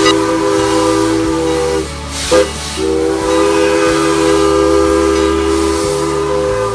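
Steam locomotive's chime whistle sounding a steady three-note chord in long blasts: one cuts off about two seconds in, a brief toot follows, then another long blast. Underneath is the steady hiss of steam venting from the engine.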